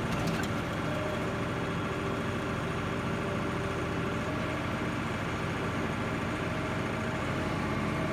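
Heavy machinery engine running steadily, with a few light clicks near the start.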